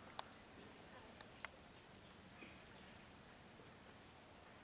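Near silence: faint outdoor ambience with a few short, high bird chirps and some light clicks in the first second and a half.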